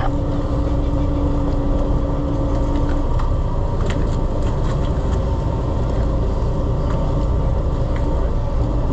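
Fishing boat underway: a steady low rumble of its engine with wind and water rushing past. A steady hum in the rumble drops out about three seconds in and comes back near the end.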